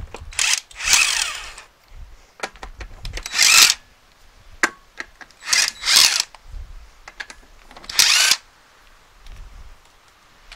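Cordless impact wrench undoing car wheel bolts in about six short bursts, with small clicks between them.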